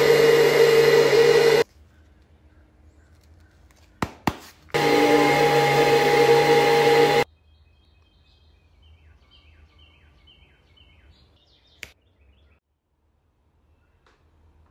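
Random orbital sander running on a wooden tabletop in two stretches of a couple of seconds each, a steady motor hum under the rasp of the sanding pad. Each stretch cuts off abruptly, with two sharp clicks just before the second. After that it is much quieter, with faint bird chirps.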